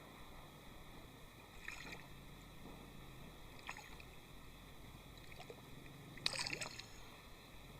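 Faint water splashes and sloshing in a pond, a few short ones with a louder splash about six and a half seconds in, over a low steady background.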